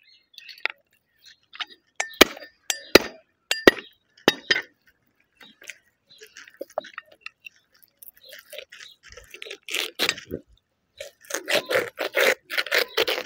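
A whole chicken being skinned by hand and with a small knife on a wooden block: several sharp metal clicks of the knife in the first few seconds, then scraping and tearing as the skin is pulled and cut away from the meat.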